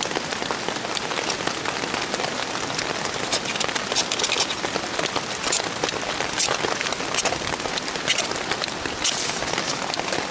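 Heavy rain falling on a poncho shelter overhead: a dense, steady hiss thick with sharp drop hits.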